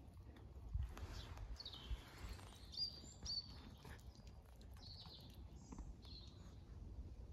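Faint outdoor ambience: small birds chirping a few times, with a falling call about two seconds in, over a low rumble.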